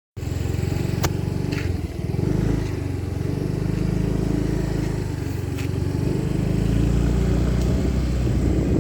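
Motor scooter running while being ridden, with a steady low rumble of engine and wind, and a couple of sharp clicks about a second in and again past the middle.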